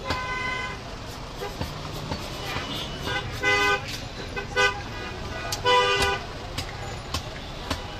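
Heavy meat cleaver chopping goat meat on a wooden block, a sharp knock every second or so. Four short horn toots from traffic are louder than the chopping.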